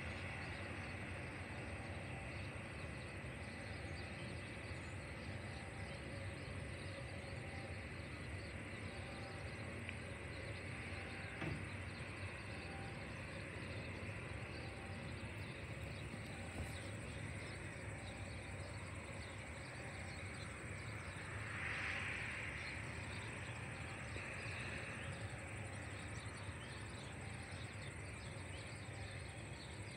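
Distant jet airliner taxiing: a steady low rumble with a faint, steady high engine whine that swells briefly about two-thirds of the way through.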